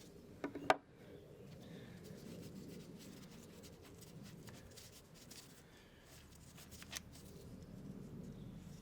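Quiet handling noise from hand tools being worked on an engine, with a quick cluster of sharp metallic clicks about half a second in and a single click near seven seconds.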